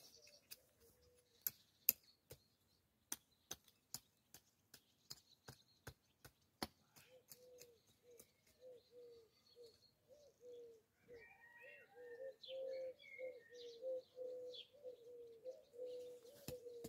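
Small hand hoe working garden soil, a string of sharp clicks and scrapes over the first seven seconds or so. From about halfway a dove coos again and again, with a few small bird chirps.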